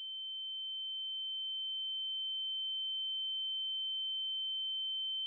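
A single steady, high-pitched electronic sine tone, growing slightly louder over the first couple of seconds and then holding at one pitch.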